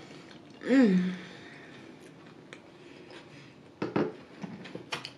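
A short hummed "mmm" from someone eating about a second in, its pitch rising then falling. Later a metal spoon clicks against a plate as it is set down, a few clicks around four seconds and one more near the end.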